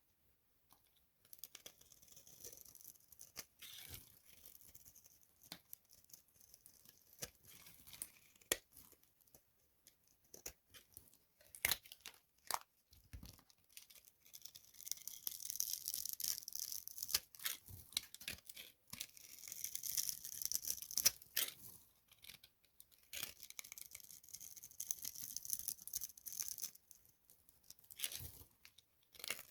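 Dry soap boxes filled with foam being crushed by hand: scattered sharp cracks at first, then from about halfway longer stretches of dense, hissy crackling and crumbling.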